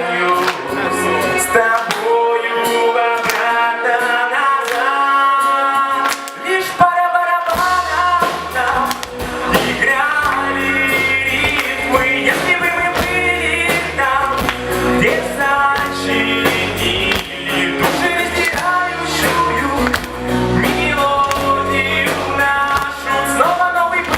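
Live rock band playing a song with a singer. The opening is quieter and without bass, then bass and drums come in about seven and a half seconds in and the full band plays on.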